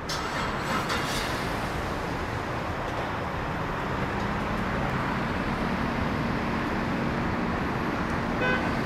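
Steady noise of running cars and traffic, with a faint low steady tone joining about four seconds in.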